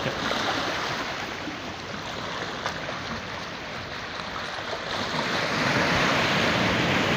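Sea surf washing in over rocks and around the waders' legs in shallow water, a steady rush that grows louder over the last couple of seconds.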